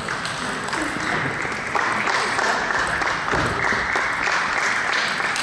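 Steady din of a busy table tennis hall: ping-pong balls clicking off tables and bats at many tables at once, with voices in the background.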